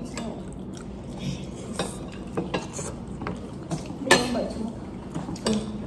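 Metal fork scraping and clinking against a food container during eating, with scattered short clicks and a sharper clack about four seconds in.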